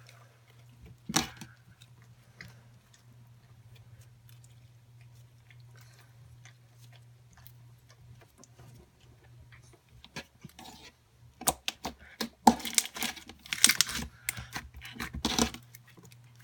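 Glitter slime being played with by hand: one sharp click about a second in, then mostly quiet. From about ten seconds in come rapid wet clicks and pops as the slime is squeezed and stretched.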